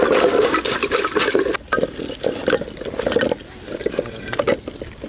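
Split firewood pieces tumbling out of a mesh bag onto a wooden firewood stand and gravel in a dense clatter for about the first second and a half. Then come sparser knocks of wood on wood as the pieces are stacked by hand.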